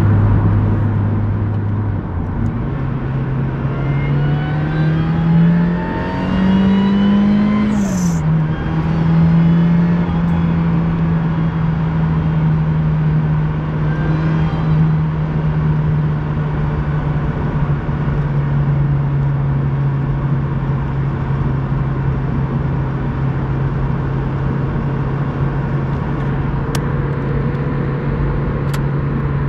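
Supercharged Mazda MX-5's 1.8-litre four-cylinder pulling hard in third gear, its note rising for about six seconds with a high squeal from the supercharger belt that climbs with the revs. About eight seconds in, a short hiss comes as the throttle is lifted, and the revs drop. The engine then runs steadily to the end. The belt squeal at high rpm is the sign of a worn belt tensioner.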